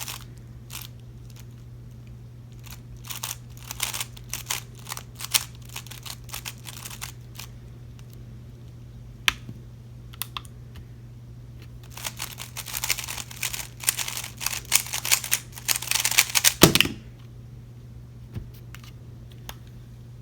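Speedcube (3x3 Rubik's cube) layers turning in quick clicking runs: scattered bursts of turns, a pause, then a dense flurry of fast turns for about five seconds. The flurry ends in a thump as the solve is finished.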